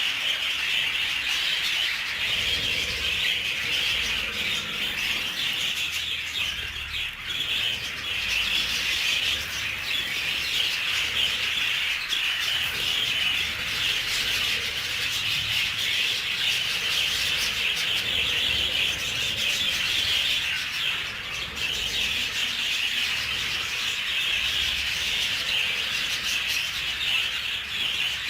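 A flock of budgerigars chattering and warbling together in a steady, dense stream of chirps.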